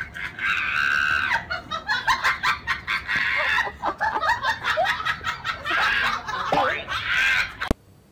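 A person laughing hard in rapid bursts, with a few longer, high-pitched squeals.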